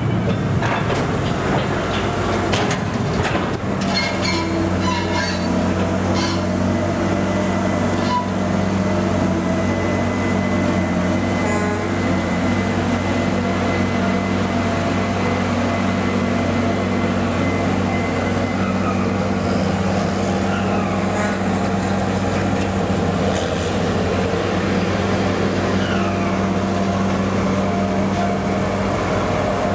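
Ship's crane machinery running steadily while it hoists and swings a shipping container, a loud even drone. Several metallic clanks come in the first few seconds, before the drone settles in.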